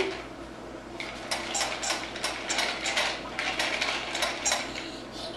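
Plastic pull-along puppy toy clicking and rattling as it is dragged across a hardwood floor, about four or five sharp clicks a second, starting about a second in and stopping shortly before the end.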